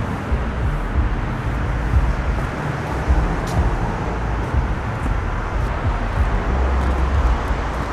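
Outdoor night background noise: a steady hiss with an uneven low rumble and a few faint clicks.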